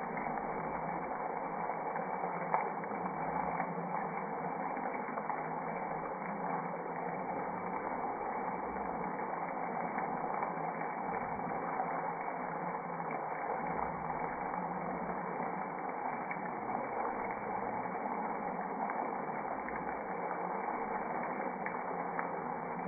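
Egg and shredded-potato mixture sizzling steadily in an oiled frying pan, with a small click about two and a half seconds in.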